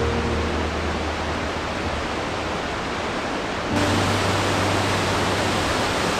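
Waterfall rushing with a steady, heavy roar of falling water, under soft background music holding low sustained notes. A little over halfway in, the water sound jumps slightly louder and brighter.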